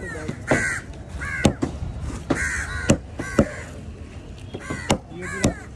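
Crows cawing repeatedly. Three sharp knocks of a large knife chopping fish against a wooden board come in between the caws.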